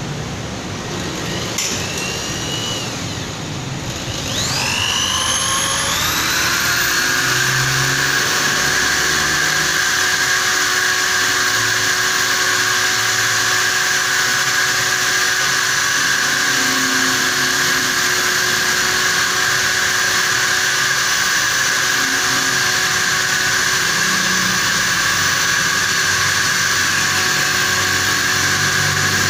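Corded electric drill clamped in a bench vise and run as a makeshift lathe, turning a white plastic (Superlene) valve blank held in its chuck. The motor spins up briefly about a second and a half in, spins up again about four seconds in, then runs at a steady whine for the rest of the time.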